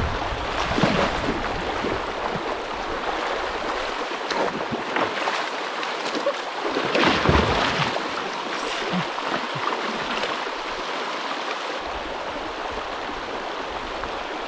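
River water flowing steadily, with a few brief louder surges about a second in and around seven seconds in.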